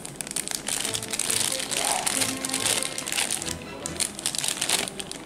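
Clear plastic bag crinkling and rustling as a handheld digital multimeter is turned over inside it, a constant crackle of many small sharp noises. Faint music plays underneath.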